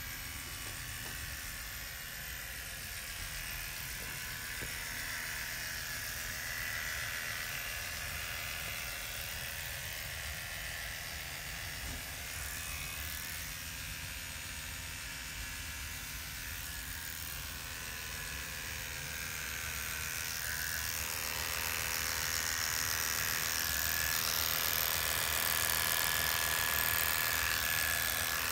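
Electric hair clippers running steadily as they shave the hair of the scalp's donor area short; the buzz grows louder about twenty seconds in.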